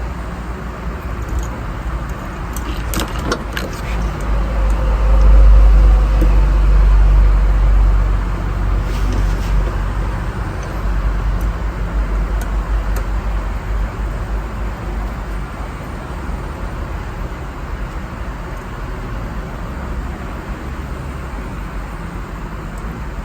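Honda Civic B-series four-cylinder engine running steadily at idle, with the low rumble swelling for a few seconds about four seconds in. A few light clicks come near the start.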